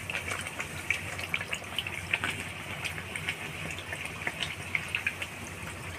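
Hot oil sizzling with many small crackles as a puffed bhatura deep-fries in an aluminium kadhai on high flame.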